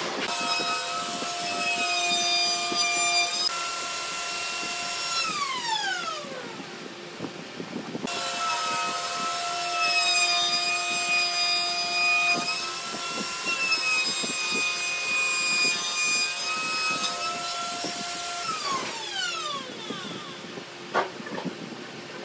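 An electric power tool's motor runs with a steady whine, then winds down in a falling whine as it is switched off. This happens twice, about five and about nineteen seconds in, over small scrapes and knocks of handwork.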